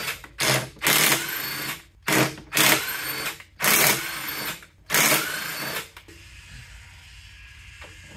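Cordless impact wrench running the case bolts out of a Torq Locker so the two halves can be split, in about six short runs, each loudest at its start and under a second long; it stops about six seconds in.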